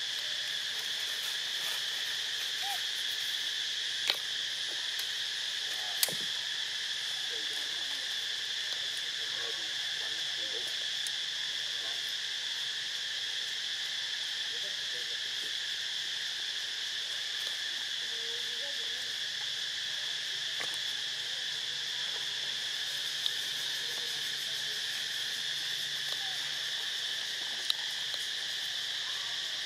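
Steady chorus of insects, a continuous high-pitched drone, broken by a few sharp clicks.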